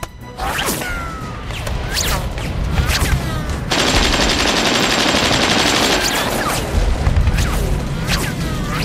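Film battle sound effects: a volley of gunfire with repeated short falling whines and low booms, and a dense rush of noise lasting about two seconds around the middle.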